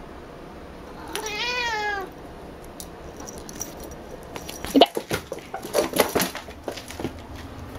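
A cat gives one meow about a second in, rising then falling in pitch. A few seconds later comes a flurry of quick taps and knocks as the cat swats a ball of cat hair to the floor and scrambles after it on the wooden floor.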